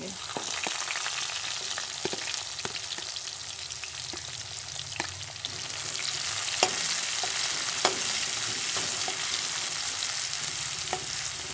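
Sliced onions and garlic sizzling in hot oil in a kadhai, stirred with a metal slotted spatula that clicks and scrapes against the pan every second or two. The sizzle grows louder about halfway through.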